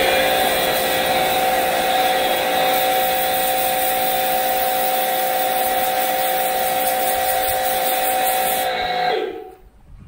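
Travino portable pressure washer running and spraying water: a steady motor whine over the hiss of the jet. About nine seconds in it cuts out, and the whine drops in pitch as it winds down.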